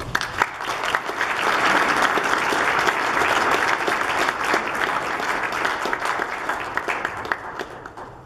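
Audience applauding, starting suddenly as the music ends and dying away near the end.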